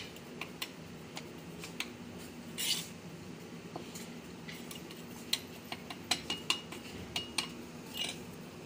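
A small metal hand trowel scraping and tapping in soil and manure inside a clay pot: irregular short scrapes and clicks, a longer scrape about two and a half seconds in, and a quick run of sharp ticks in the second half.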